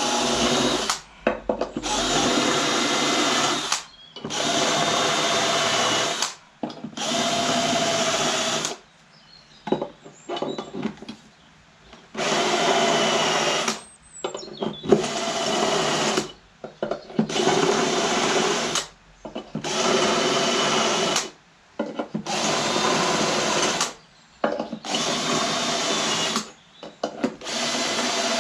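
Electric drill run in repeated bursts of about two seconds each, starting and stopping about a dozen times, with a longer pause near the middle.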